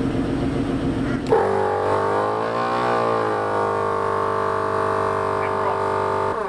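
Adventure Kings Thumper Max MkII twin-cylinder 12 V air compressor switching on with a click about a second in, then running with a steady hum as it pumps up a tyre, its pitch sagging briefly soon after it starts.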